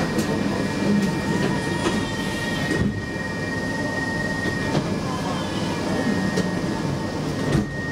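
Cabin sound of a Stockholm Metro C20 subway car standing at a station platform: a steady low hum, with a single high steady tone over it that cuts off about four and a half seconds in. Faint voices are heard.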